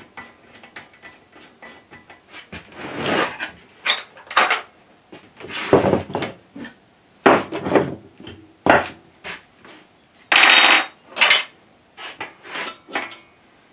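Irregular knocks, clatters and scrapes of hands-on workshop handling: wooden support blocks being moved on the bench and parts being fitted to a lathe headstock, with one longer scrape about ten seconds in.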